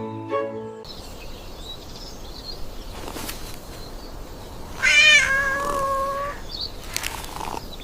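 A cat meows once, a drawn-out call that wavers at first and then holds steady for about a second and a half, over steady background hiss.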